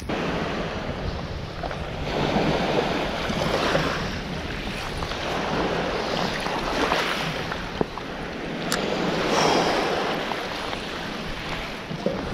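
Small waves washing and lapping at the shoreline in swells every couple of seconds, with wind rumbling on the microphone.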